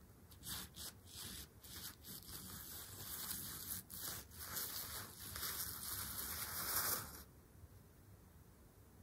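Crinkly synthetic fabric sheet rustling as a braided cord is dragged across it, in a run of short scrapes that builds to a longer, louder rustle and stops abruptly about seven seconds in.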